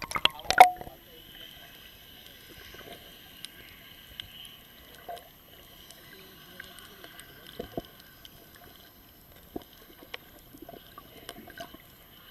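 Water sloshing around a boat, with a few sharp knocks at the start and scattered clicks after.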